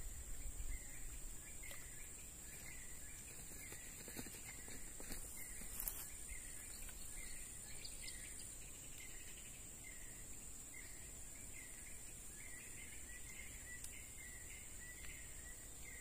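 Faint wild swamp ambience: a steady high insect drone, with a short chirping call repeated about once a second and coming faster near the end. A few faint clicks about four and six seconds in.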